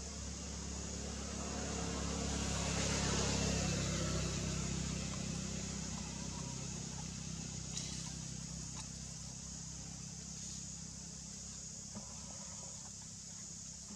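Outdoor background of a steady high insect drone over a low engine hum, with a broad swell like a passing vehicle between about two and five seconds in, and a few faint clicks later on.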